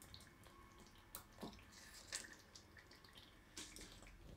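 Near silence with faint wet squelches and a few light clicks of a spatula stirring thick gravy and stuffed tomatoes in a metal kadhai.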